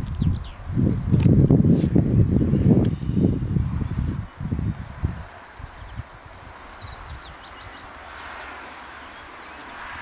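Meadow insects chirping in a steady, rapid, pulsing high trill. Under it a loud low rumbling noise, the loudest sound, dies away about five seconds in.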